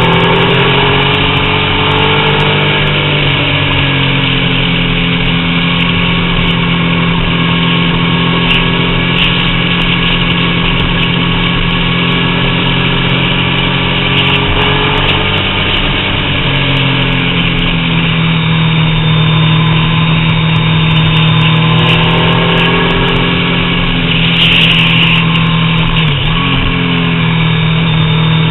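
Triumph Daytona 675 three-cylinder engine running under way, heard from on the bike, its pitch sinking and climbing a few times as the throttle is closed and opened.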